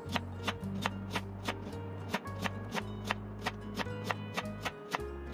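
Kitchen knife slicing a peeled daikon radish into rounds, the blade knocking on a wooden cutting board about three times a second in a steady rhythm. Background music with sustained low notes plays underneath.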